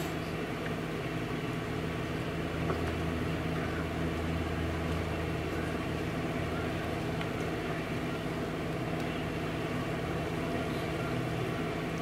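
Steady low mechanical hum, like an engine or motor running at idle, over outdoor background noise.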